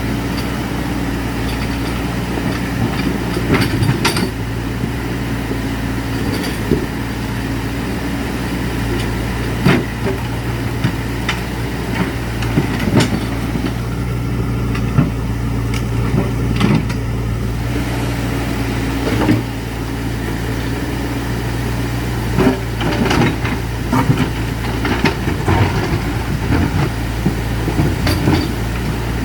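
An engine running steadily at an even speed, with scattered knocks and clanks over it.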